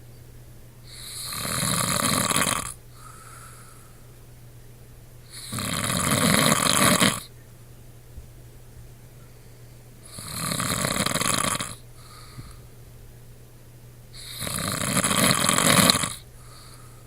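A man snoring in his sleep: four long snores about every four and a half seconds, each growing louder before it stops.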